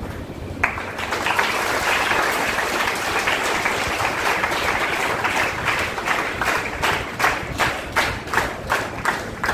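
Audience applause that starts about half a second in and, in the second half, settles into rhythmic clapping in unison at about three claps a second.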